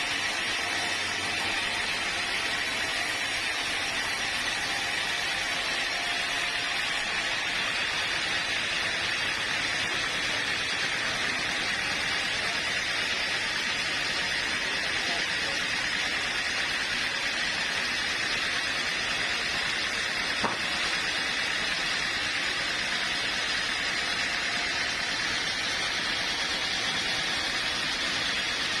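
Sawmill machinery running with a steady, even noise and no change in load, with one sharp click about twenty seconds in.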